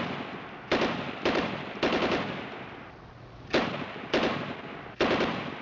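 A series of sharp gunshot-like bangs, two to three a second in short groups, each followed by a fading echo.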